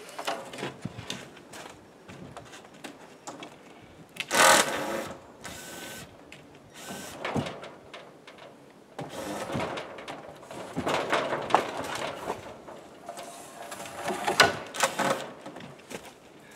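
Cordless drill whirring in several short bursts as screws are driven out of the wooden shelter frame, with scattered knocks and clatter of boards.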